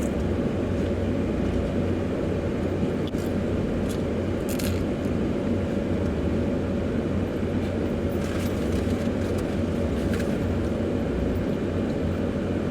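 Steady low hum of an idling car engine, with a few brief crunches of people eating tortilla chips.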